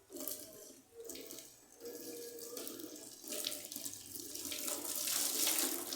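Water running from a kitchen tap into a sink, with uneven splashing as something is rinsed under the stream. It is loudest near the end.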